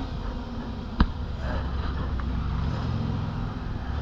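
Car engine running at idle, a steady low rumble, with one sharp click about a second in.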